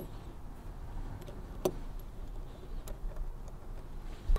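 Oversized steel needle rollers for a 1942 Harley-Davidson WLA front-hub needle bearing clicking against each other and the bearing sleeve as they are set in one by one. There are a few sharp metallic clicks a second or so apart, and a dull knock near the end.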